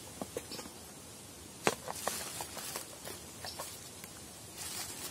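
Camping gear being handled: scattered light clicks and knocks, the sharpest about a second and a half in, then a plastic bag rustling near the end.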